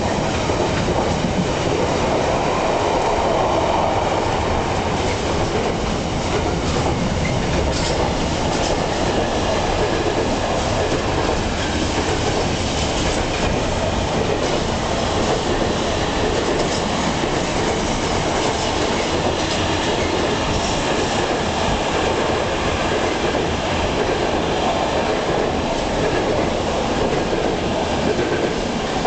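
Container wagons of an intermodal freight train rolling past on the track, the wheels running over the rails in a steady, unbroken noise.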